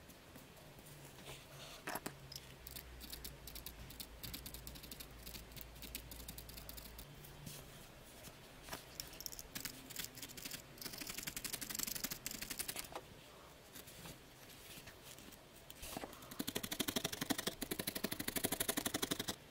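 A felting needle stabbing again and again into a wool felt piece, making rapid, crisp little crunching ticks. The stabbing comes in spells, one about ten seconds in and a faster, louder run in the last few seconds.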